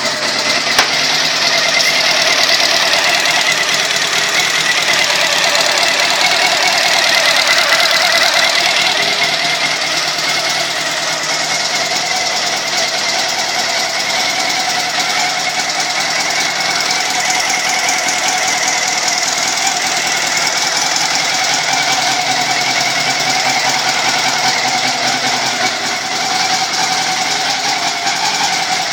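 Honda CB400 motorcycle engine running steadily with a knocking, ticking noise whose cause the owner does not know.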